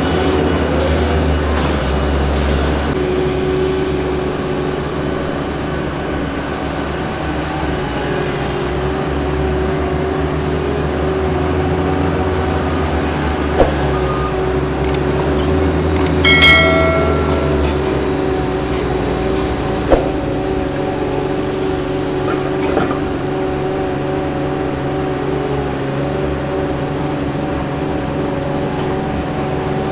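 Diesel engines of asphalt-paving machinery running steadily, a continuous drone. Two sharp knocks come about halfway through and again about six seconds later, with a short high-pitched tone between them.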